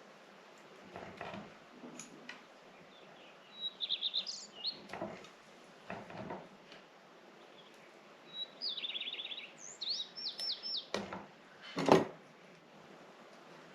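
A small songbird sings two quick trilled phrases, one about four seconds in and a longer one past the middle. Between them come several short clicks and knocks from handling tools on the bonsai, the loudest near the end.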